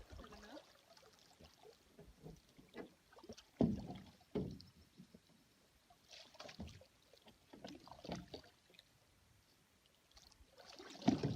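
Canoe paddle strokes in water: a handful of separate splashing strokes, irregularly spaced, with quiet between them.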